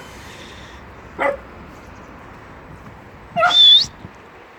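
Puppies barking at play: one short bark about a second in, then a louder, high-pitched yelp that rises in pitch near the end.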